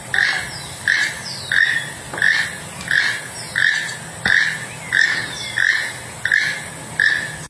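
Keel-billed toucan calling: a short, harsh note repeated steadily, about three calls every two seconds.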